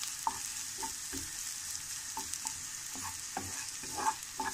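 Sliced garlic sizzling in a little hot oil in a nonstick frying pan, with a steady high hiss, while a spatula stirs and scrapes it in short, irregular strokes about every half second. The garlic is being fried until golden.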